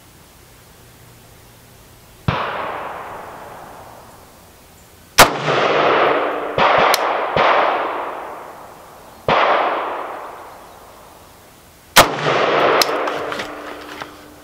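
Rifle shots from a Zastava M70 AK in 7.62×39 mm, fired one at a time a few seconds apart. Each sharp crack is followed by a long echoing decay, and a few fainter shots fall between the louder ones.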